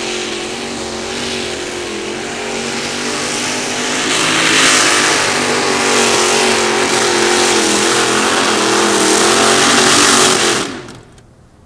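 Hot-rod pulling tractor's engine running flat out under load as it drags a weight-transfer sled down the pulling track. It gets louder about four seconds in and falls away sharply near the end as the run stops.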